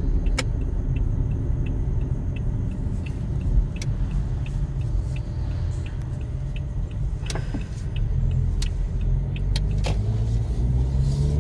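Inside a moving car's cabin: a steady low rumble of the engine and tyres on the road. A light, regular ticking runs through the first half or so, and a few sharp clicks stand out.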